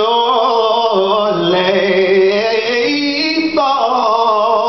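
Male gospel singer singing a slow hymn line ('…surely…') into a microphone, drawing out long, wavering notes with a change of pitch about three and a half seconds in.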